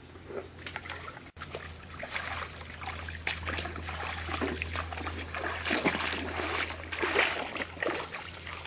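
Shallow stream water splashing and sloshing in a run of short, uneven splashes as feet wade through it.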